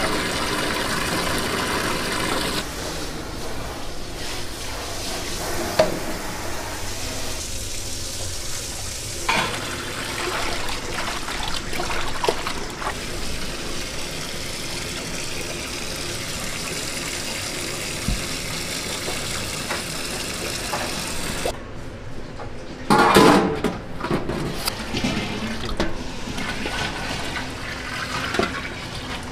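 Tap water gushing over pork offal in a stainless steel sink as it is washed, with splashing and the odd clatter of handling. Near the end, cloudy liquid is poured from a bowl into a steel pot.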